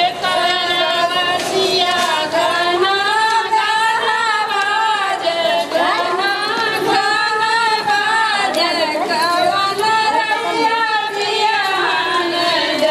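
A woman's high-pitched singing voice carrying a melody of long, wavering held notes.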